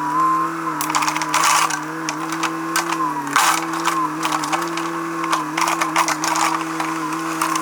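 Heavy machine engine running steadily, with irregular metallic clanks and rattles over it; the loudest knocks come about one and a half and three and a half seconds in.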